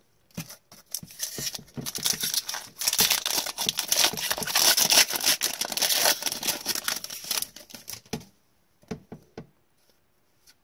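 A trading-card pack wrapper being torn open and crinkled by gloved hands: a dense crackling rustle lasting several seconds, then a few light clicks and shuffles as the cards are handled near the end.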